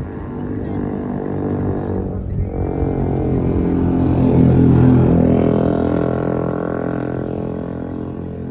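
A motor vehicle's engine running. It grows louder to a peak about halfway through, then fades a little.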